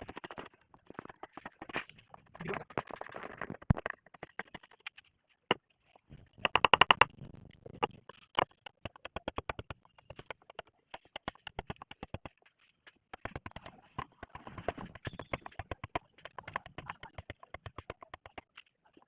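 Rapid, irregular tapping of carving tools on wood, many knocks a second, with a louder, denser flurry about a third of the way through.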